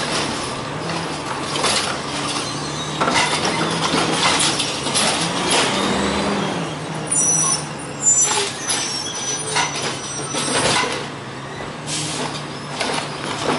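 Heil Rapid Rail automated side-loader garbage truck on a CCC LET2 chassis, its natural-gas engine running steadily while the automated arm clanks and bangs as it grips, lifts and empties carts into the hopper. A hiss of air brakes is heard around the middle.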